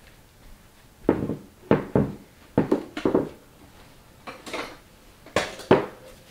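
Plastic knock-off LEGO bricks being handled and pressed together: about nine sharp plastic clicks and clatters in small clusters, starting about a second in.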